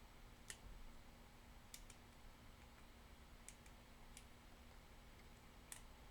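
A handful of faint, short clicks at irregular intervals as a lock pick works the pins of a Kwikset pin-tumbler lock cylinder, over a faint steady low hum.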